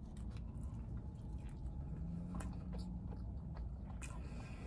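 A person chewing a mouthful of a glazed-donut fried chicken sandwich: quiet, soft, wet mouth sounds with a few faint clicks.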